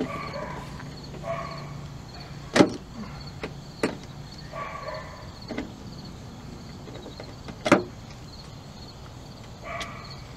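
Clicks and clinks of a Phillips screwdriver working the cowl screws out by hand, with two sharp clicks louder than the rest and a few softer ticks between them.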